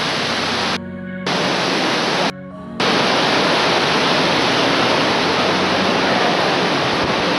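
Steady loud rushing of water from the stream that runs through the cave, cutting out twice for about half a second near the start.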